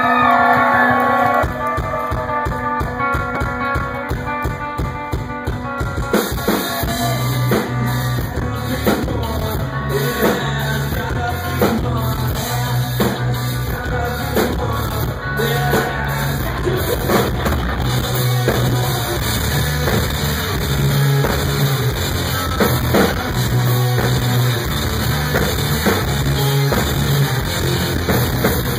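Live rock band playing: electric bass, guitar and drum kit. A sparser guitar passage gives way to the full band about six seconds in, with steady drum hits and a heavy bass line.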